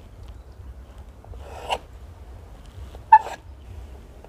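Knife cutting through a rolled log of dough on a metal board: a brief scraping cut, then a sharp click with a short ring as the blade meets the metal about three seconds in.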